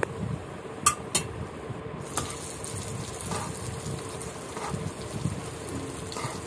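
Rohu fish pieces in a thick onion-spice masala sizzling and bubbling in a pan, with a few sharp clicks of a spatula against the pan, about a second in and again near two seconds, as the pieces are turned.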